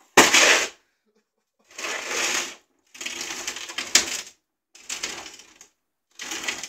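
Heavyweight combat robot driven in short jerks on a concrete floor: its electric drive motors run and its chassis and wheels rattle and scrape in five bursts of under a second to about a second and a half, with silence between. The first burst, just after the start, is the loudest, and there is a sharp click near the middle.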